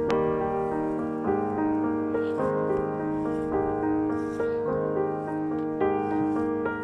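Background piano music, one note after another in a slow melody.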